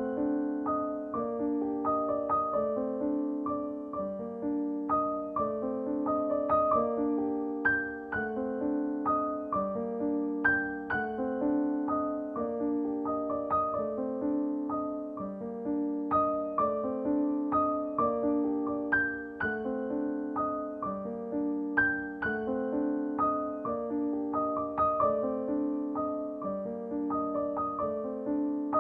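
Gentle background piano music: soft, sustained notes played in a steady, even rhythm.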